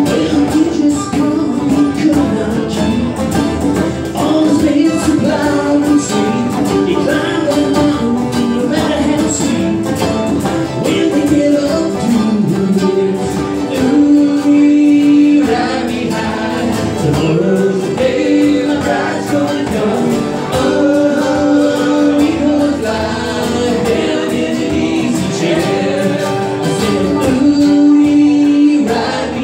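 A small acoustic band playing a country/bluegrass-style song live, with banjo, mandolin, acoustic guitar and a hand drum, and men's voices singing.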